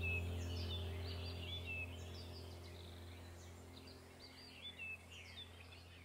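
Background ambient track of many birds chirping over a steady low drone, all fading out gradually.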